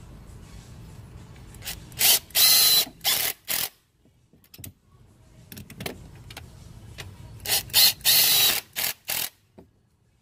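Cordless drill with a socket running bolts tight in short bursts of the motor, in two clusters: one about two seconds in and another about seven and a half seconds in.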